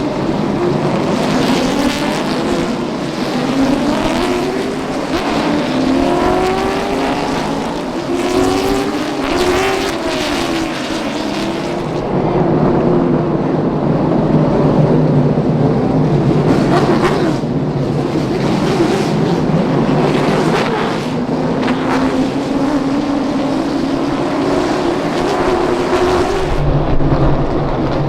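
Several race car engines running on a short oval track, their pitch rising and falling as they accelerate and ease off, with the lines of more than one car overlapping.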